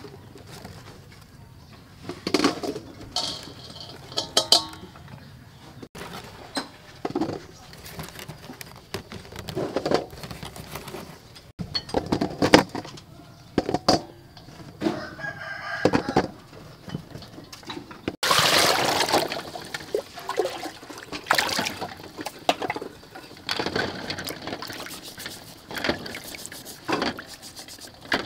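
Eggs knocking and clinking as they are handled in a steel bowl, with a rooster crowing. In the second half, water splashing and a scouring pad scrubbing as the eggs are washed in the water-filled bowl.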